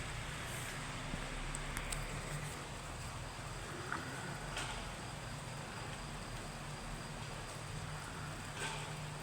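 Steady rain falling, with a few sharper drops ticking on a surface, over a low hum.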